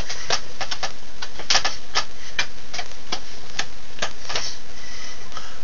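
A rapid, irregular series of sharp lip-smacking kiss noises, about two to three a second, made with the mouth against a hand in a glove, over a steady hiss.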